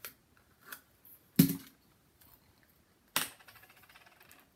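Crafting handling sounds: a small cardboard box and a glue bottle clicking and knocking against the work table. Light clicks come first, then a sharp knock about a second and a half in, and a crisp click about three seconds in followed by a brief crackle.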